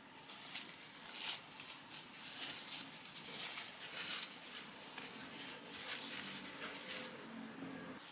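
Plastic cling film crinkling and rustling as it is peeled off a log of almond paste, in a run of uneven crackles that stops about seven seconds in.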